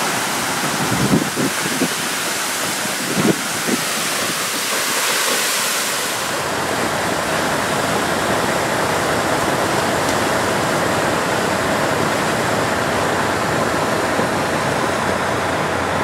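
Water gushing in a steady rush from a broken-off fire hydrant, shooting up in a tall column at an estimated 2000 gallons a minute. A few dull low bumps come in the first few seconds.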